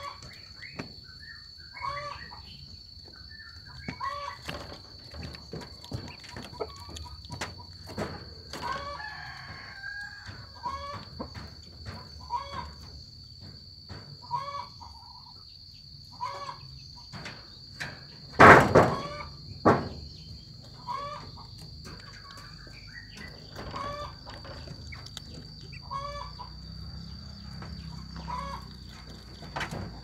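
A mongoose chewing and tearing at a dove carcass, with many small crunching clicks. Short clucking calls repeat every second or two throughout. About two-thirds of the way through come two loud knocks about a second apart.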